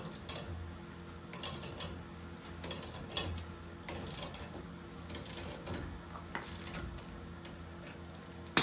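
Scattered light metallic clicks and clinks as a ball joint press is worked loose from a freshly pressed-in lower ball joint, ending in one sharp metal clank.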